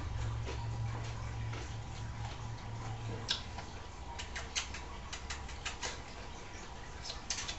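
A pet bird pecking and nibbling at a piece of offered vegetable: a run of small, irregular beak clicks, several a second, starting about three seconds in, over a low steady hum.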